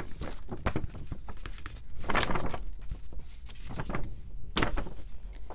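A folded paper album poster being opened out by hand: paper rustling and crackling, with louder crinkles about two seconds in and again near the end.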